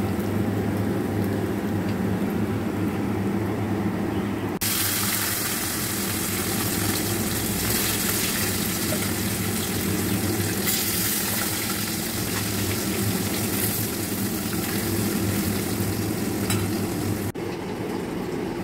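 Over a steady low hum, a loud sizzle starts suddenly about four and a half seconds in as pieces of marinated rohu fish go into hot oil in an iron kadhai. The deep-frying sizzle carries on steadily and stops abruptly near the end.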